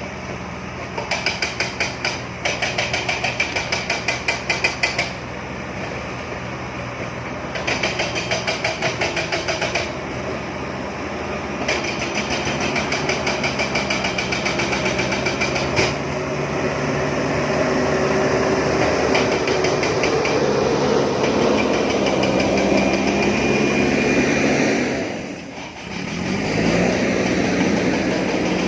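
JCB backhoe loader's diesel engine running under working load, with two stretches of rapid, rhythmic knocking early on. Later the engine rises in pitch as it works harder, drops briefly near the end, then picks back up.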